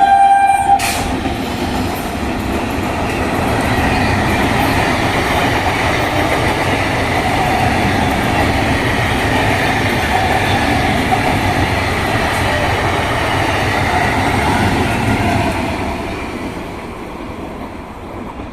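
Electric multiple-unit train running through a station at speed: a steady rumble of wheels on rail with some clickety-clack, fading away over the last few seconds. The tail of a train horn blast ends in the first second.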